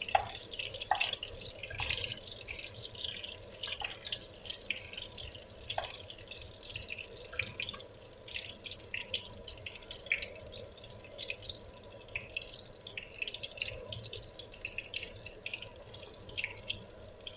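Diced onion sizzling in hot cooking oil in a pan, a steady irregular crackle of small pops as it sautés, busiest and loudest in the first couple of seconds.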